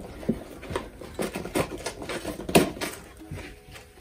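Small cardboard box being handled and opened: scattered light taps and scrapes of cardboard, with one sharper knock about two and a half seconds in.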